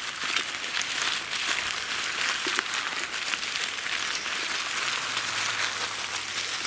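Bicycle tyres rolling over a trail covered in dry fallen leaves: a steady crackling rustle with scattered sharp clicks on a bumpy ride.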